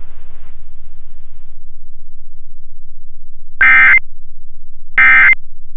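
Emergency Alert System SAME digital data tones: two short, loud, harsh buzzing bursts about a second and a half apart, the first about three and a half seconds in.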